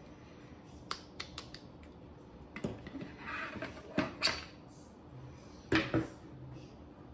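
Hard 3D-printed plastic parts clicking and knocking against each other and the tabletop as they are handled and set down: a few light clicks about a second in, a rustle of handling, then louder knocks, with two sharp knocks near the end.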